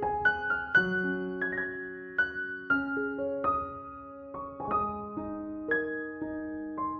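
Soft background piano music: single notes and chords struck at a slow, gentle pace, each ringing out and fading.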